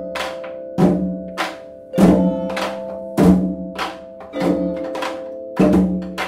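Background music: a steady drum beat, a hit a little under twice a second, over held chords.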